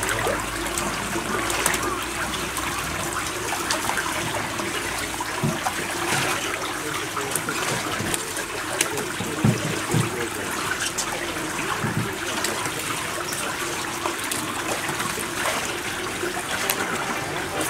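Shallow running water trickling steadily over sand and rocks. Scattered small clicks throughout, and a few short low knocks around the middle.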